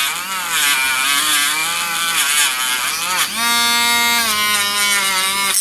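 Small handheld rotary tool with a polishing wheel buffing a steel knife blade, its motor running continuously. The pitch wavers as the wheel is pressed to and eased off the blade, then holds steady for the last couple of seconds.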